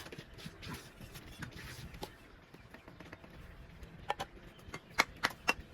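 Scattered light taps and clicks from masonry hand-tool work, with a quick run of four louder clicks near the end.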